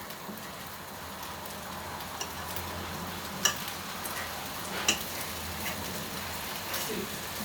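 Egg mixture sizzling in a frying pan while a fork stirs and scrapes it against the pan, with a few sharp clinks of the fork on the pan, the loudest about three and a half and five seconds in.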